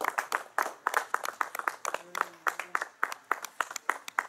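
A handful of people clapping, with separate, irregular claps several times a second.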